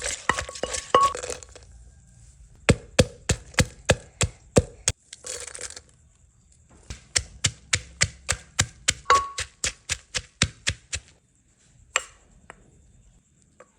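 Pestle pounding beans in a mortar: quick rhythmic strikes, about three a second, in several bursts separated by short pauses, with a single strike near the end.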